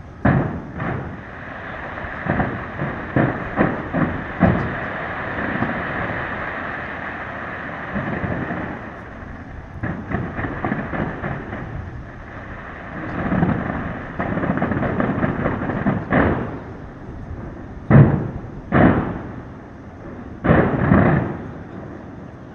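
Aerial fireworks bursting: a quick run of booms with dense crackling through the first several seconds, then scattered single booms, the loudest about eighteen seconds in.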